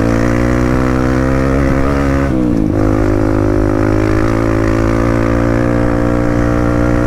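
Kawasaki KLX140G dirt bike's single-cylinder four-stroke engine running steadily while riding, with a brief dip in engine speed about two and a half seconds in.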